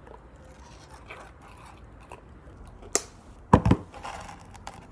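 Plastic contact lens solution bottle being handled and opened: faint crinkly handling noise, a sharp click about three seconds in, then a louder knock a moment later.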